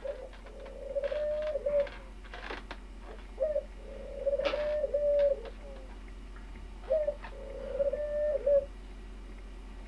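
Marker drawing a face on an inflated latex twisting balloon, squeaking against the rubber in short squeaks of steady pitch. They come in three groups, the longest about halfway through.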